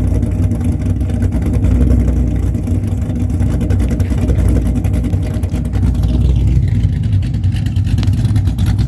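Cammed, iron-block 6.0-litre V8 swapped into a 1998 Pontiac Trans Am WS6, running steadily at idle.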